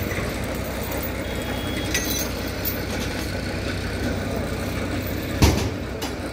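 Heavy vehicle engine idling with a steady low hum, and one sharp knock about five and a half seconds in.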